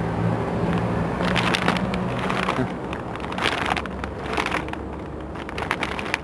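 Street noise: a vehicle engine running with a steady low hum, joined about a second in by irregular crackling and rustling.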